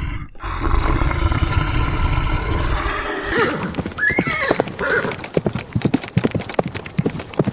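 Zebra calling with a high call that rises and falls about four seconds in, among many sharp hoof clatters, after a low rumbling call in the first three seconds.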